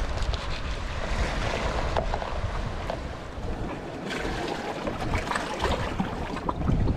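Wind noise on the microphone over the wash of sea waves, with scattered small knocks and wet handling sounds as fish are cleaned on a plastic board and moved about in a plastic colander.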